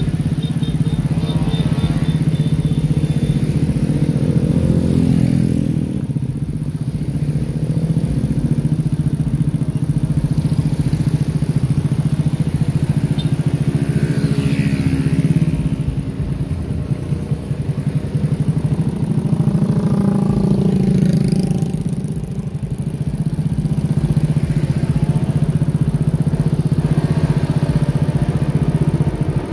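Motorcycle engines of a passing convoy running steadily, with single machines passing close by around the middle and again about two-thirds of the way through.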